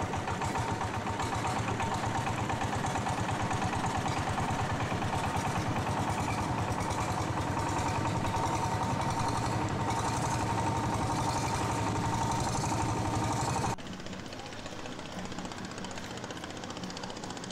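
Engine of a long, narrow wooden long-tail boat running steadily under way, with a rapid, even chugging beat. About fourteen seconds in, the sound drops abruptly to a quieter engine sound.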